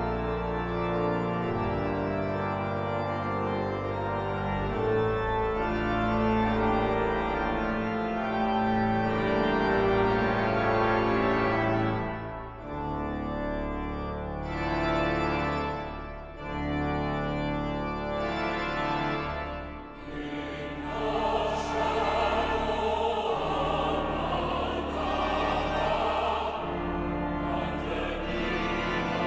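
Organ playing long held chords over a low bass line. About twenty seconds in, a choir starts singing with the organ.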